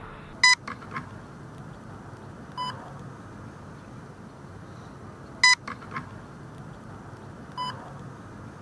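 Short electronic beeps with a pitch near 1 kHz: two loud ones about five seconds apart, each followed by faint short blips, and a quieter beep between each pair. A steady hiss runs underneath.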